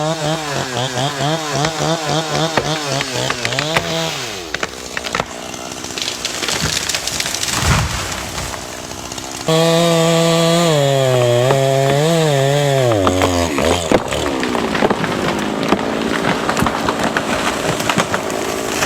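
Chainsaw cutting into wood, its engine note wavering up and down under load. The revs fall away about four seconds in, a noisier stretch of cutting follows, then the saw comes back louder and its pitch drops again a few seconds later.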